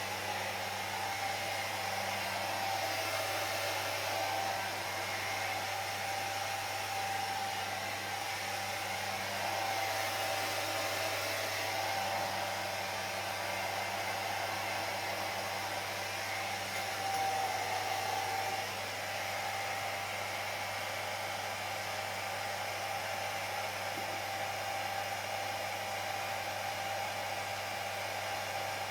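Hair dryer running steadily, blowing on wet hair: an even rush of air with a steady whine and a low hum, swelling slightly for a moment a little past the middle.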